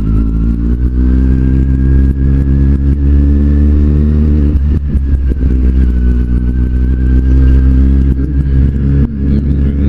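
Kawasaki Z750's inline-four engine running under way, its pitch climbing steadily as the bike accelerates. About halfway through comes a brief break, like a gear change, after which it climbs again.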